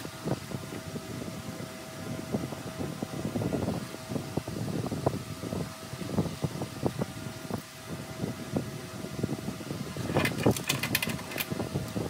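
Irregular knocks and rattles of metal parts and tools being handled at a stopped lathe, over a steady machine hum. A quick run of sharp metallic clicks comes near the end. The audio is sped up to double speed.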